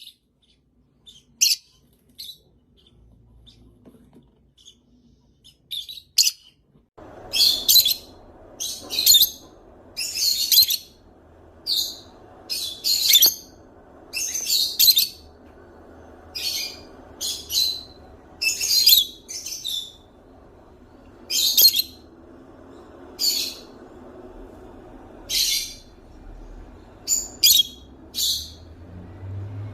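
Parrot giving short, high-pitched calls, a few scattered at first, then repeated about once a second from about seven seconds in over a low steady background hum.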